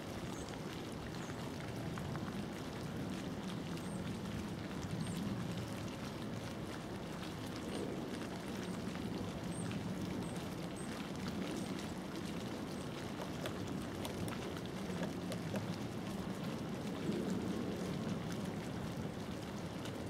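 Pileated woodpecker pecking at tree bark: faint, irregular taps over a steady low rushing background noise, with a few brief, high chirps scattered through.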